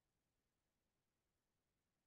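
Near silence: only a faint, even background hiss.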